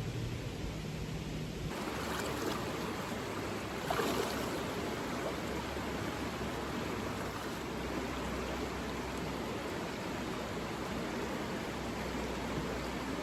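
Steady rushing of a flowing mountain river. It takes over abruptly after a low steady hum in the first couple of seconds, and one brief click comes about four seconds in.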